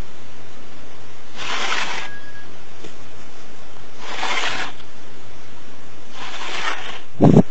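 Cat hissing in three short bursts over a steady low hum, with a loud low thump near the end.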